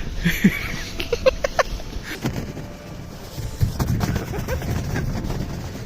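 Scattered distant voices and short exclamations over a steady low rumble, with a few faint clicks.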